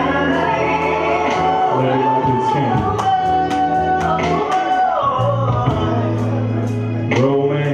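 Music with a man singing a melody over sustained bass notes.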